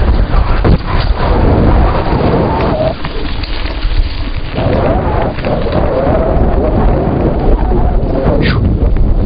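Wind buffeting the microphone of a camera carried on a moving mountain bike, with a loud rumble and constant rattling and knocking as the bike rides over a rough dirt track. A brief falling squeal comes near the end.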